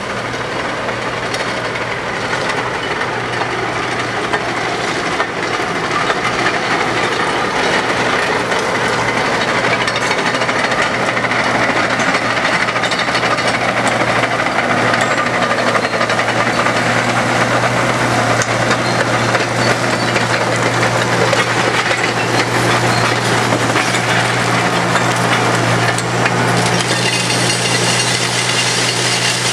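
Diesel engines of track-maintenance machinery running steadily, with a dense mechanical clatter over a low engine hum; the engine hum grows stronger in the last few seconds.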